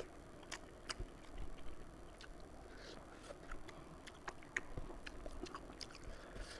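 Close-up eating sounds: chewing a mouthful of fish curry and rice, with many irregular wet mouth clicks.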